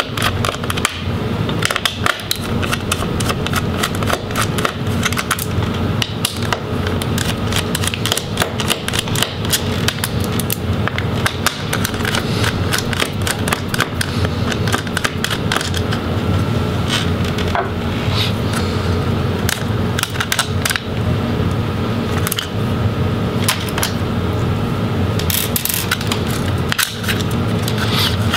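Small screwdriver clicking and ticking against metal as it backs out the screws of a MacBook Pro's hard drive bracket, with hands handling the bracket and aluminium case, over a steady low hum.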